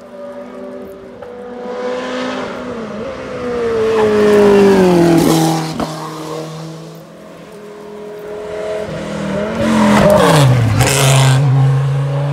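Hill-climb race cars passing at speed one after another, engines pulling hard. Each engine note swells and then drops sharply in pitch as the car goes by: the first about four to five seconds in, the second about ten to eleven seconds in.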